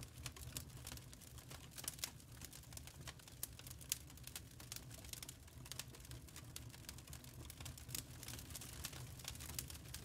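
Wood fire crackling in a fireplace: irregular sharp pops and snaps, several a second, over a low steady hum.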